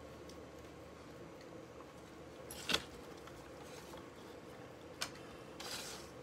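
Great Pyrenees puppies play-wrestling on a wooden deck: a sharp click a little under three seconds in, a smaller one about five seconds in, and a brief scuffing rustle just before the end.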